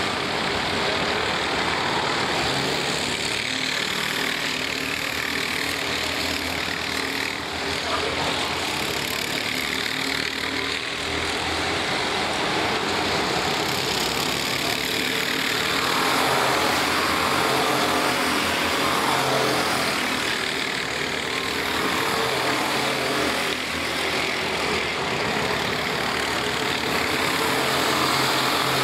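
A pack of racing kart engines running hard, several at once, their pitch and loudness swelling and falling away repeatedly as the karts pass and brake and accelerate through corners.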